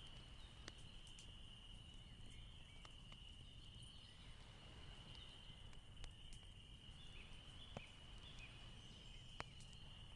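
Near silence: room tone with a faint steady high-pitched tone and a few faint ticks.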